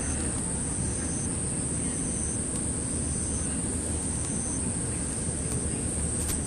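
Outdoor ambience of insects: a steady high-pitched chorus, with a shorter, lower call repeating about once a second, over a steady low rumble of wind and handling noise.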